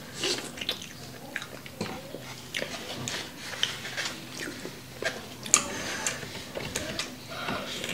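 Close-miked eating: chewing and biting into chicken wings and pizza, with irregular wet smacks and clicks of the mouth.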